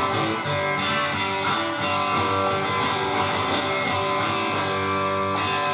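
Electric guitar on the Purple coil of a Lace Sensor dual pickup (split to single coil), played through a Universal Audio Dream '65 amp pedal with a little overdrive: a run of picked notes and chords, with a chord struck near the end and left ringing.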